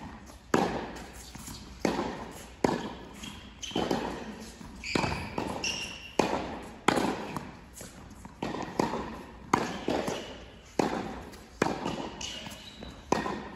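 Tennis rally on an indoor hard court: sharp racket-on-ball strikes and ball bounces in quick succession, roughly one every second, each echoing in the hall. A couple of brief shoe squeaks come about halfway through.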